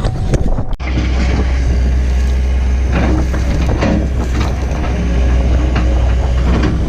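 A heavy machine's engine running steadily with a deep drone, with scattered clicks and scraping like dirt and stones being moved, starting abruptly about a second in.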